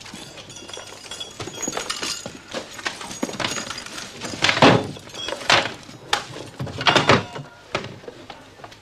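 Repeated knocking, thuds and crashes, like a wall being banged on and broken into, in a search of the walls for a hidden cache. The heaviest blows fall about halfway through and again a couple of seconds later.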